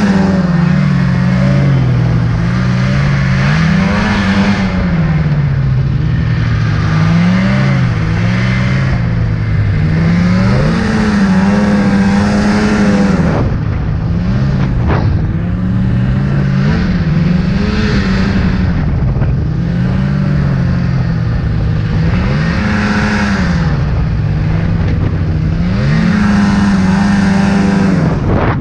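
Snowmobile engine revving up and down over and over, its pitch rising and falling every second or two as the sled ploughs through deep powder snow.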